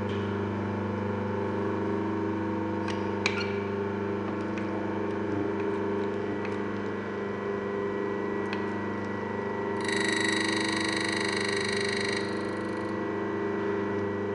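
Mahlkönig EK43S coffee grinder running empty with a steady hum. About ten seconds in, a high-pitched rubbing sound lasts for about two seconds as the spindle is screwed in and the burrs touch: the burrs have reached their zero point.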